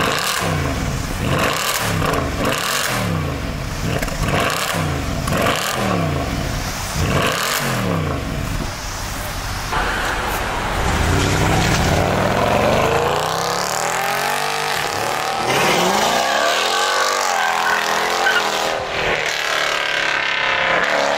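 2010 Mercedes-Benz E63 AMG's 6.2-litre V8, with the centre resonator replaced by straight pipes and the stock rear mufflers still on. It is revved hard at the tailpipes in quick blips, about every second and a half. About ten seconds in, the car is heard driving off and accelerating, its engine pitch climbing and falling away in two long sweeps.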